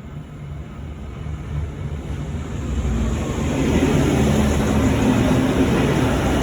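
V/Line VLocity diesel multiple unit pulling into the platform, its engines and wheels growing louder over about three seconds and then running at a steady level.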